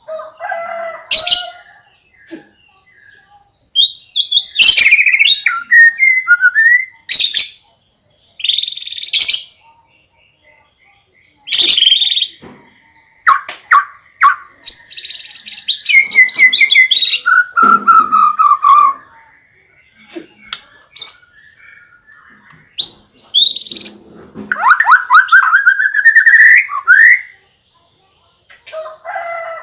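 White-rumped shama singing loud, varied phrases laced with canary-style trills and rapid whistled sweeps, each burst a second or two long with short pauses between.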